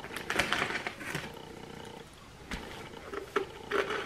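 A mouthful of dry Cookie Crisp cereal crunching as it is chewed, in irregular crunches.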